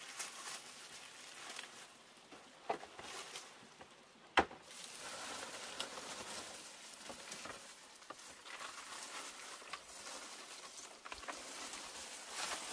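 Irregular rustling and light crackling of leaves and twigs, with one sharp click about four seconds in.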